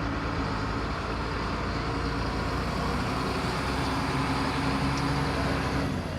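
Volvo EC210BLC excavator's six-cylinder diesel engine running steadily; its even low tone changes and drops away just before the end.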